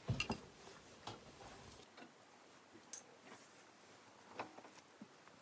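Faint, scattered clicks and light knocks of wooden clothes hangers being handled at a wardrobe rail, a cluster right at the start and single clicks every second or so after.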